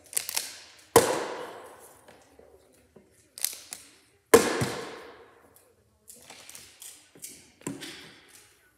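Plastic water bottle tossed and landing on a wooden table: two loud thuds, about a second in and a little past four seconds in, each dying away over about a second, with lighter taps and knocks between.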